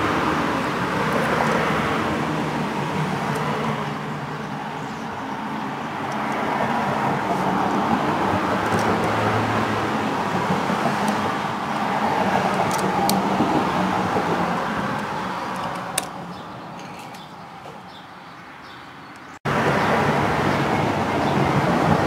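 Road traffic noise, a steady wash that swells and eases as vehicles pass, dropping lower for a few seconds near the end before jumping suddenly back up. A few faint clicks of the plastic outlet being handled and pushed into its metal box come through it.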